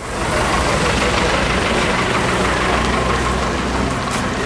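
Street noise with a vehicle engine idling, a steady low rumble under a constant wash of traffic sound.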